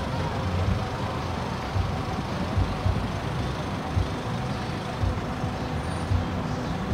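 Wind buffeting the microphone outdoors: a low, uneven rumble that swells and drops every second or so over a faint steady background hiss.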